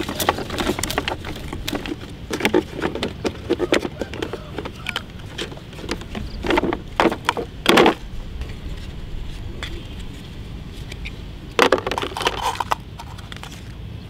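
Hollow plastic toys knocking and clattering as they are handled and set down on sandy ground: a toy dump truck and plastic sand moulds. The knocks come in several short clusters with pauses between.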